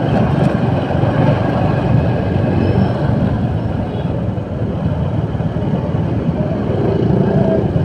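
Road traffic heard from a moving motorcycle: steady low engine and road rumble from the bike and the heavy vehicles around it, with wind on the microphone.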